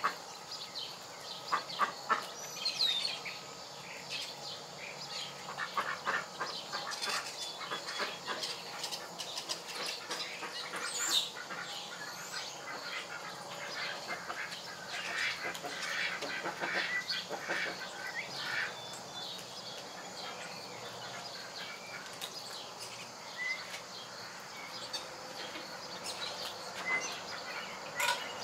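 Domestic chickens clucking and chirping softly while they peck, with scattered short sharp taps.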